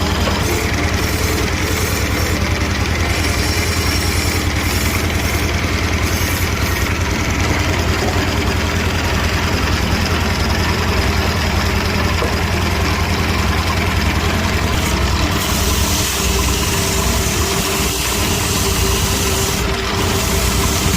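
A motor running steadily with a low hum and a fast, even pulsing.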